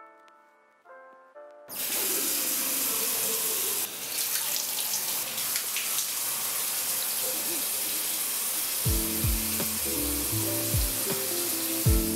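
Soft melodic music, then about two seconds in a loud, steady rush of running water starts. A beat-driven music track with heavy bass thumps comes in under the water about nine seconds in.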